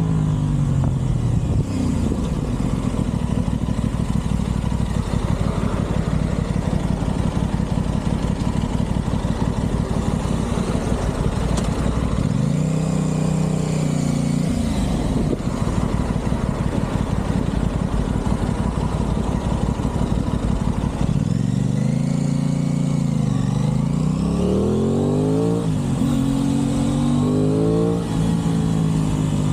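Aprilia Tuono 660's parallel-twin engine running under way. It holds a steady note for the first stretch, then revs up and down through gear changes about twelve seconds in and several times in the last third.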